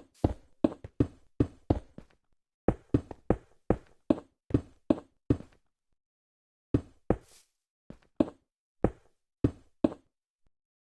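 A series of short, sharp knocks, about three a second, in runs of several with short pauses between.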